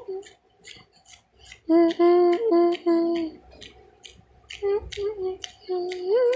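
A young female voice singing a tune with no clear words, in held notes with short pauses, loudest from about two to three seconds in, with short ticks throughout.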